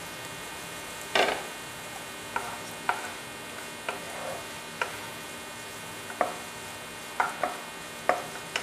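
A spatula stirring and scraping onions, tomatoes, cashews and melon seeds frying in a nonstick pan, with irregular clacks of the spatula against the pan, the loudest about a second in, over a faint steady sizzle.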